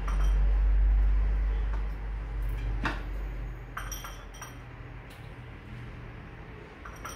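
Light clinks and taps of a ceramic bowl and plate as marinade is scooped by hand and rubbed into whole fish, a few short clicks about three and four seconds in. A low rumble is loudest in the first two seconds.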